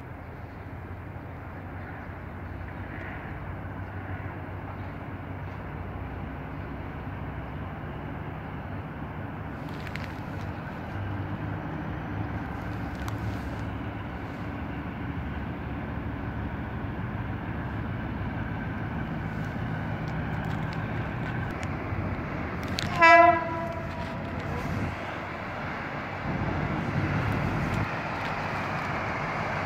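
Diesel locomotives of a freight train approaching, their engine rumble growing steadily louder as they come closer. The locomotive horn sounds one short blast about three-quarters of the way through.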